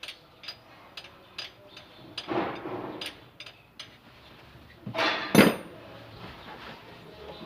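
Ratchet wrench clicking in quick, even strokes while working on a Toyota Hilux starter motor's mounting bolts, then two loud metal clanks a little after halfway.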